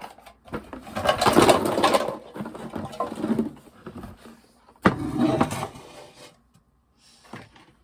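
A box full of small plastic fidget toys being handled, the toys rattling and scraping against each other in three bursts.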